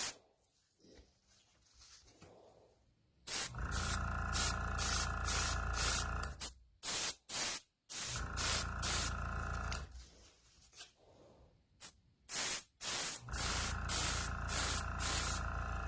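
Airbrush spraying in quick, evenly repeated bursts of hiss, about three a second. The spraying comes in three spells of a few seconds each, with the air compressor humming through each spell. A few short single bursts fall in between.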